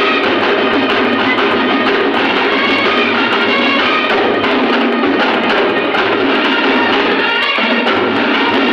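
Live band music, loud and continuous: brass instruments playing a melody over drums.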